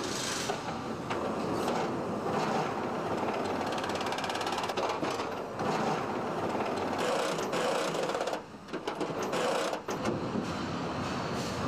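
Car factory assembly-line noise: a steady mechanical clatter of clicks and ratcheting rattles, with a fast rattle around the middle. The noise drops away briefly twice, a little past the middle.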